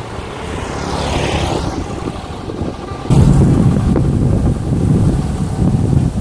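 Daelim VF125 125cc motorcycle riding past with a sweep of pass-by noise about a second in. About three seconds in the sound jumps suddenly to a louder, steady low engine rumble as the bike rides on.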